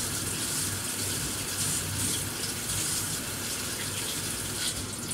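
Kitchen tap running steadily into a sink as vegetables are rinsed under it by hand.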